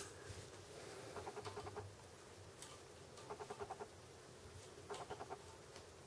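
Serving thread being pulled and worked tight around a bowstring to tie on a nocking point: three short bursts of faint, rapid squeaky ticking.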